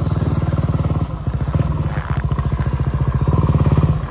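Motorcycle engine running at low revs close to the microphone, a steady rapid throb that grows a little louder near the end.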